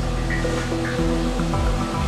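Background music with sustained notes over a steady low bass.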